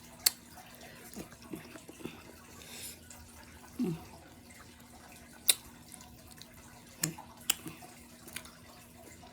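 Fish tank water trickling steadily, with sharp clicks and smacks of crawfish being eaten by hand, the loudest just after the start and about five and a half seconds in. A brief low hum of the voice near four seconds.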